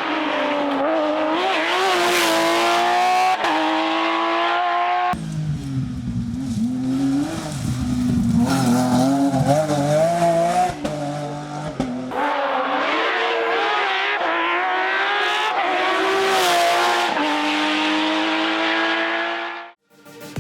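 Porsche rally car engines at full throttle, revs rising and falling through the gears in three separate passes that change abruptly about five and twelve seconds in. The engine sound cuts off just before the end.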